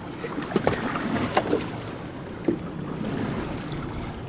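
Steady wind and water noise aboard a fishing boat at sea, with a few short sharp knocks and clicks in the first half.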